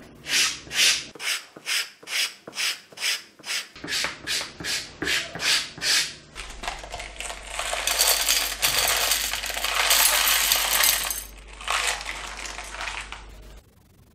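Rhythmic scraping strokes on a leather sole, about three a second, followed by a long rattle of small metal nails poured from a paper packet into a metal dish, which stops sharply near the end.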